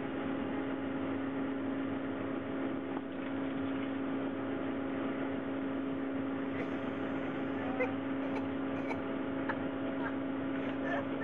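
Steady mechanical hum with one constant low tone, from the surface ski lift's drive machinery running. A few short faint knocks in the second half, the loudest about eight seconds in.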